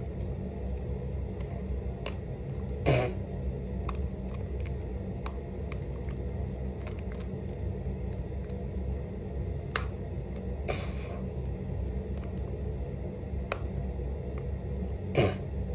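Steady low background hum with scattered small clicks, and brief soft noises about three and eleven seconds in, as a plastic eyeliner pen is handled and applied close to the face.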